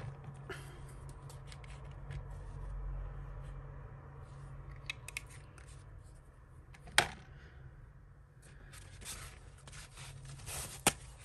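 Quiet room with a steady low hum, a few light clicks, and one sharp click about seven seconds in; light rustling comes in near the end.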